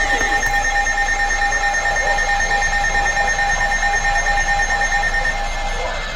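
Emergency Alert System attention tone: a steady, loud electronic alarm of held high pitches with an even ripple in its loudness. It drops in level about five seconds in and stops near the end.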